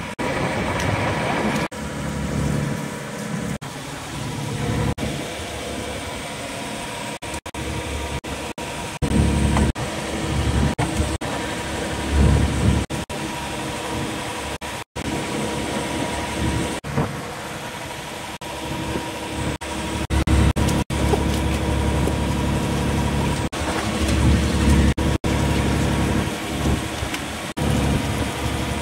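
Fishing boat's inboard engine running steadily under a constant rushing noise of wind and sea, with a low hum that swells and eases now and then.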